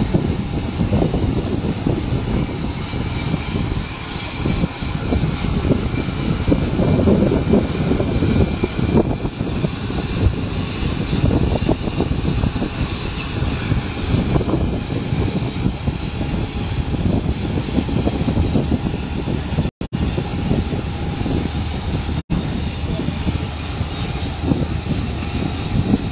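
Aircraft engines running steadily as a loud, even rumble with a faint whine above it. The sound cuts out twice for an instant near the end.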